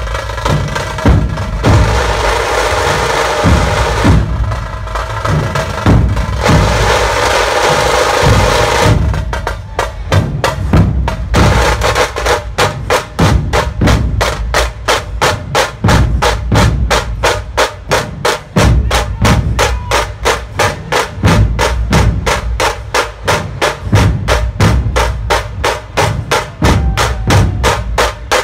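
Music driven by fast, steady drumming. For the first several seconds a denser, brighter layer plays over the drums; it drops away about nine seconds in, leaving a quick, even drum beat.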